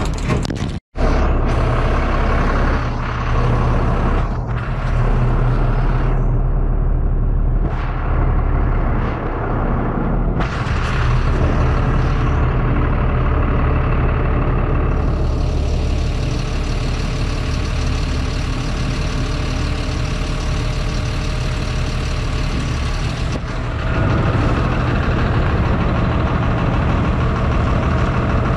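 Tow truck's engine running steadily with a low rumble. For several seconds in the middle a steady hiss of air rides over it.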